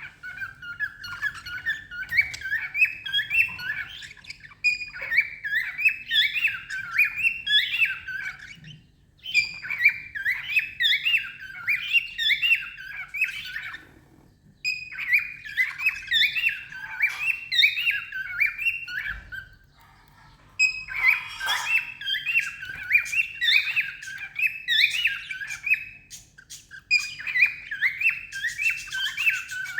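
Cockatiel singing: bouts of quick, repeated whistled notes, about three or four a second, each bout lasting a few seconds with brief pauses between.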